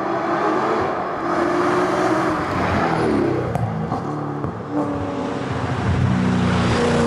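Ford Mustang rally car's engine under hard driving: the revs fall and climb through gear changes, with a few sharp pops in the middle and a strong climb in pitch near the end as it accelerates.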